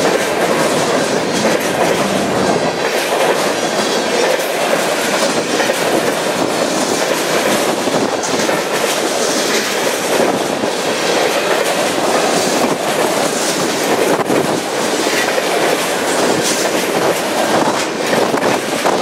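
Empty centerbeam flatcars of a freight train rolling past at speed, a steady clatter of steel wheels on the rails.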